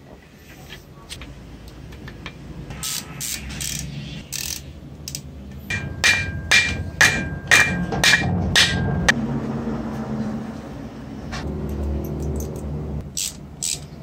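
A series of sharp knocks, about two a second for a few seconds mid-way, with a ringing tone carrying through them, over a low steady hum. Scattered single knocks come before and after.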